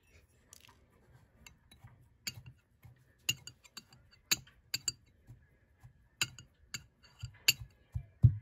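Glass clinking on glass in an irregular series of sharp taps, with dull thuds, as a drinking glass tamps graham-cracker crumbs down into another glass.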